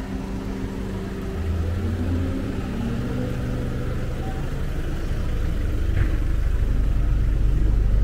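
Motor vehicle engine idling with a steady low hum, and a low rumble that grows louder toward the end.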